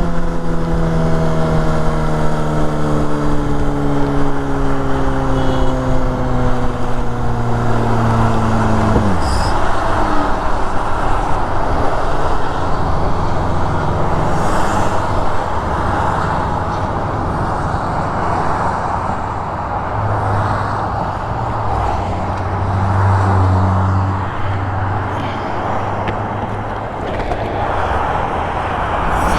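A 2005 Yamaha R6's inline-four engine on the move, its note sinking steadily as the bike slows, then dropping away abruptly about nine seconds in. After that, wind and road noise dominate, with a low engine hum underneath.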